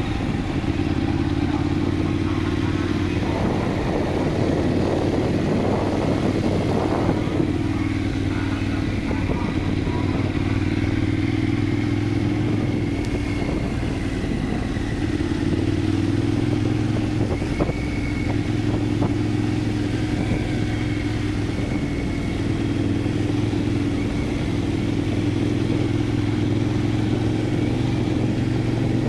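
Motorcycle engine running at a steady, even speed while being ridden, its pitch holding nearly level, with a rougher rushing noise for a few seconds early in the ride.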